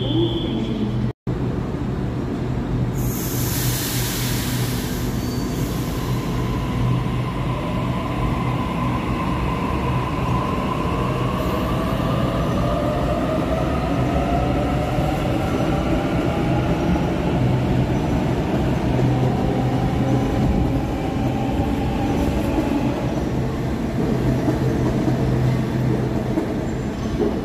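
Sydney Trains double-deck electric train pulling out of an underground platform. A burst of air hiss comes about three seconds in, then the traction motors whine, rising steadily in pitch as the train accelerates, over a constant low hum and wheel rumble.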